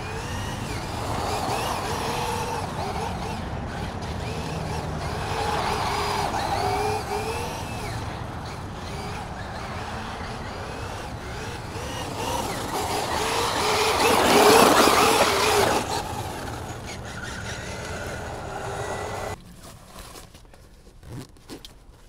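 Traxxas UDR RC truck's brushless motor whining, its pitch rising and falling again and again as the truck speeds up and slows, with a loud rushing swell about two-thirds of the way through. Near the end the sound drops suddenly to a quiet car cabin.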